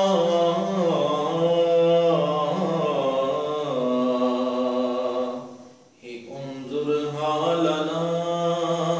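Unaccompanied vocal chanting: long held, wavering notes over a steady low drone. It breaks off briefly about six seconds in, then resumes.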